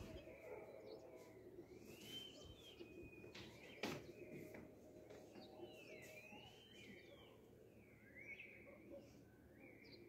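Faint bird calls: repeated arching notes, each rising then falling, about once a second, with a sharp click a little under four seconds in.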